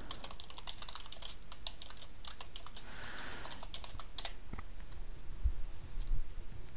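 Typing on a computer keyboard: a quick run of keystrokes for about four seconds, then a few scattered clicks.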